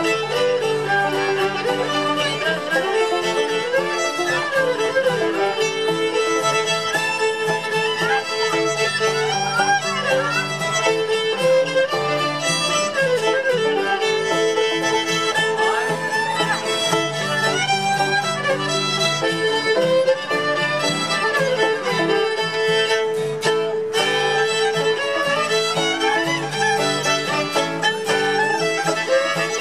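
Two fiddles playing an old-time fiddle tune, backed by acoustic guitar and banjo.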